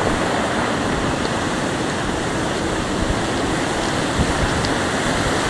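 Storm surf breaking on the shore: a steady, dense wash of heavy wave noise with no distinct single crashes.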